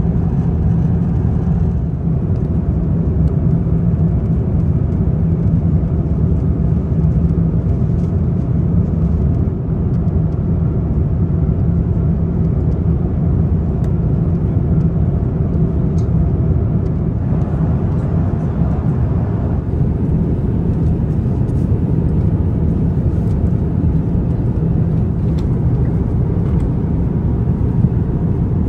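Steady low rumble of an Airbus A350-900's cabin in flight: engine and airflow noise from its Rolls-Royce Trent XWB engines, heard from an economy seat.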